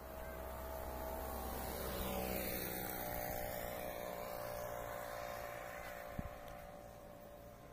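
A vehicle driving past on the road, its engine and tyre noise swelling to a peak about two seconds in and then fading away. A short knock about six seconds in.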